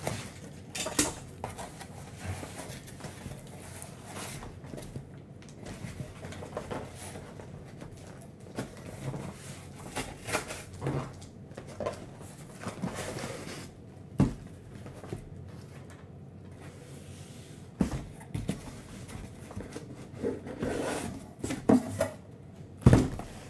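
A cardboard shipping case being cut open and handled, with scraping and rustling of cardboard and several sharp knocks, the loudest near the end.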